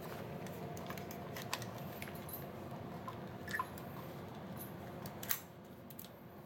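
Faint handling noises of hands working on an airsoft electric rifle's parts and wiring: a few scattered small clicks and rustles over a steady low hum that drops away about five seconds in.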